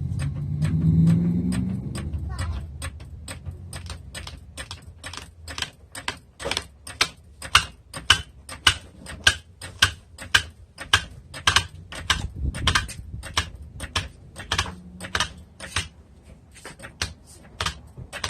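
Ratchet wrench being worked back and forth, giving sharp clicks about one and a half to two times a second. A low hum with a short rising tone comes before it in the first two seconds.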